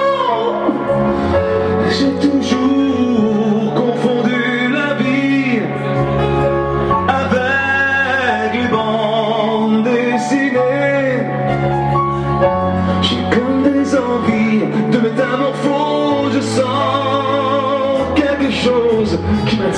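A man singing a slow ballad with wavering vibrato and sliding held notes, accompanied by strummed acoustic guitar chords.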